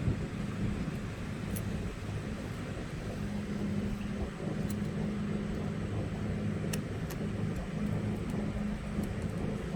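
A steady low mechanical hum, with a few faint light clicks of small metal parts as a spring and split ring are fitted to a motorcycle's gear-shift mechanism.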